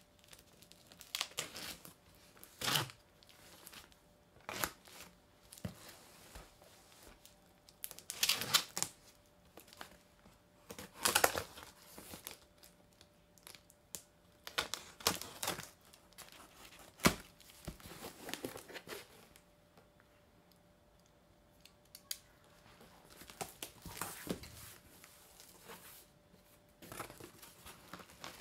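Packing tape being pulled and torn off a cardboard shipping box, with the box's flaps rustling. It comes in irregular bursts of ripping and crinkling, with a short lull a little past the middle.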